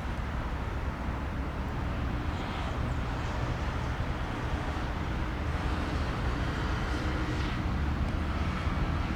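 Steady low rumble of an Airbus A319's jet engines, growing slightly louder towards the end.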